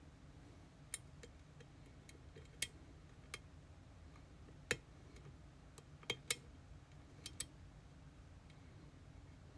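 Sparse, sharp small clicks and taps, about ten at uneven intervals, some in quick pairs, from tools working in an EVVA Dual dimple lock cylinder.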